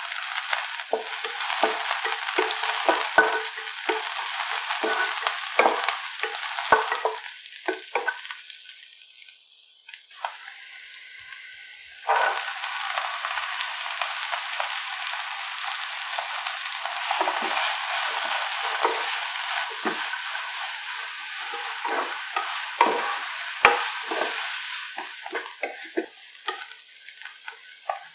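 Sliced onion frying in hot oil, sizzling as a spatula stirs it with repeated scrapes; the sizzle dies down about nine to ten seconds in. About twelve seconds in a fresh, loud sizzle starts as diced carrot, beans and capsicum go into the pan, and they are stirred with the spatula, the sizzle easing off near the end.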